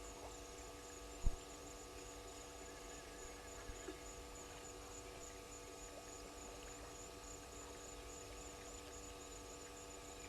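Steady electrical mains hum, several even tones held throughout, over faint background noise, with one short sharp low thump about a second in.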